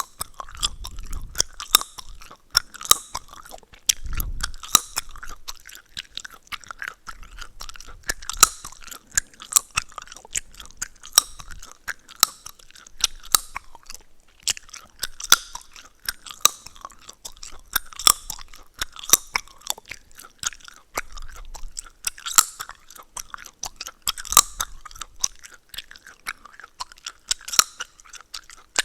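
Close-miked gum chewing: wet mouth sounds with frequent sharp cracks and pops of the gum, one to several a second.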